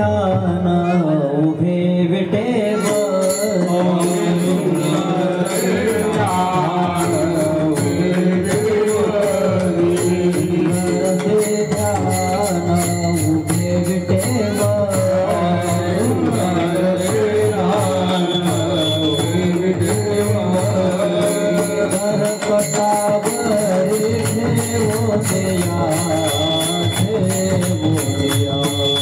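A Marathi devotional kirtan panchapadi sung by a male voice, with instrumental accompaniment and percussion keeping a steady beat.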